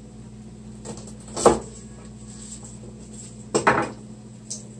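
Kitchen clatter of utensils and dishes on a counter: a sharp knock about a second and a half in and a short run of knocks around three and a half seconds, over a low steady hum.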